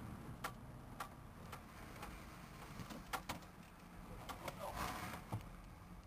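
A car's turn-signal indicator ticking in the cabin, about twice a second at first, over the low rumble of the car driving.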